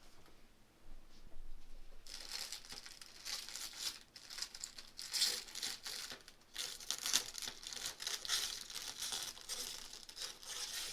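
Plastic packaging crinkling and rustling as a new RC model is unpacked, starting about two seconds in and going on irregularly.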